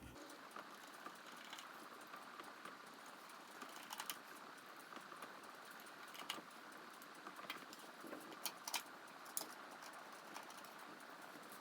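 Faint, scattered light clicks and ticks of a screwdriver driving screws by hand into a wooden subwoofer box, a few sharper clicks standing out over a low hiss.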